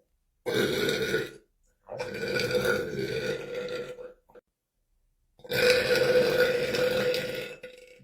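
A man belching three times: one short belch, then two long belches of about two seconds each, each held at a steady pitch.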